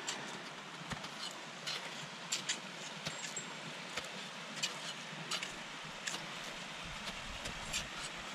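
Crampons and ice axes biting into steep, firm snow: irregular crunches and clicks, about one a second, over a steady background hiss.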